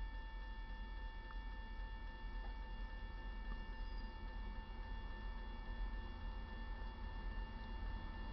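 Railroad grade crossing warning bell ringing steadily as the crossing gates come down, signalling an approaching train.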